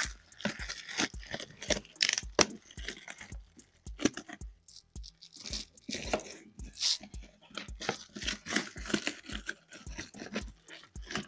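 Scissors cutting and scraping through the packing tape and cardboard of a shipping box, in irregular snips, scrapes and tears.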